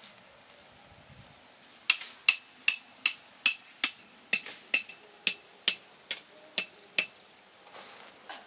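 A hatchet used as a hammer, driving a tent stake into the ground: about thirteen sharp, evenly spaced blows, roughly two and a half a second, each with a short metallic ring. The blows start about two seconds in and stop about a second before the end.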